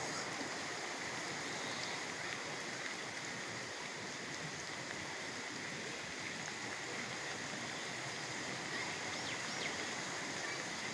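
Floodwater rushing and flowing in a steady, even stream.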